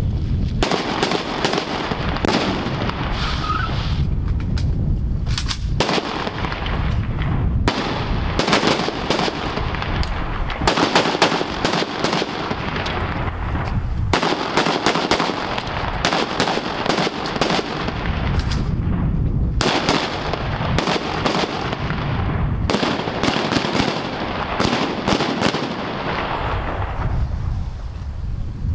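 Gunfire: rapid sharp shots, many per second, in bursts broken by short pauses, going on throughout.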